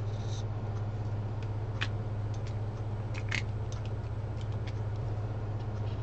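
Felt-tip marker on paper: a short scratchy stroke at the start and a few faint ticks and squeaks about two and three seconds in, over a steady low hum.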